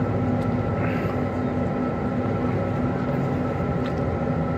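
Steady hum of a vehicle's engine and cabin, heard from inside while it moves, with a constant low drone and a few steady higher tones.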